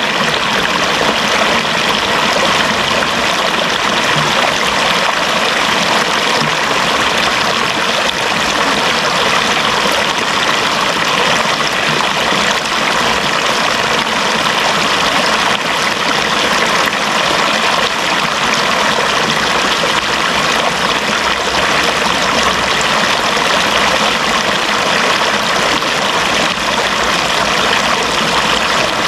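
Running water flowing in a steady, even rush that doesn't change.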